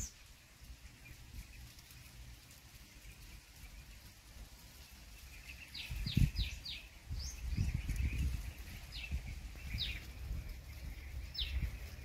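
Purple sunbird calling in short, sharp high notes that drop in pitch: a quick run of four about six seconds in, then single notes every second or two. A low rumble sets in at the same time and is the loudest sound.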